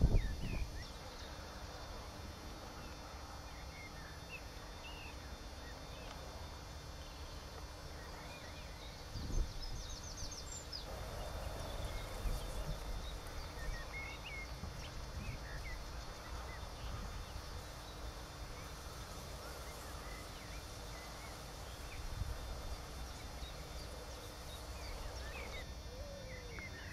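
Small birds calling and singing: many short high chirps and a brief fast trill, over a steady low rumble, with one dull knock about nine seconds in.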